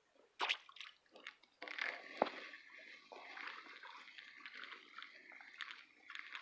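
Small, uneven water splashes and drips from a small fish hooked on a line being pulled out of a creek, with a few sharp clicks about half a second in.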